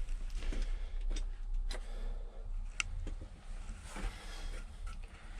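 A few scattered light clicks and taps inside the closed cab of a Cat 335 excavator with the engine off, over a faint steady low hum.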